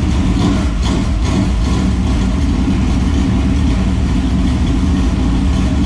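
Dirt late model race car's newly built V8 engine idling steadily on one of its first runs.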